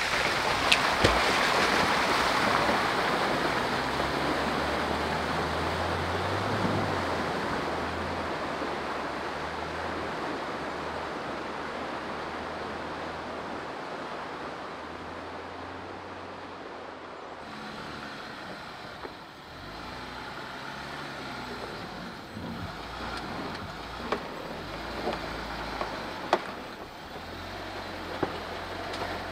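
Jeep Gladiator driving slowly on an off-road trail, first through a flooded stretch and then crawling up a rutted dirt climb, with its engine running at low speed. Near the end there are a few sharp knocks as the tyres work over rocks.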